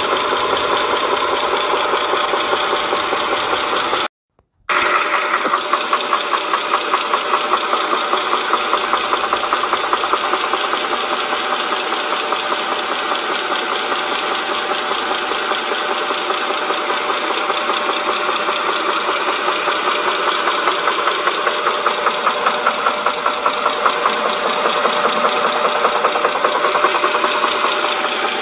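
A Dodge Charger 2.7-litre V6 engine running with a fast, steady knocking rattle from the timing chain. The owner suspects a broken timing-chain guide or tensioner. The sound cuts out for about half a second about four seconds in.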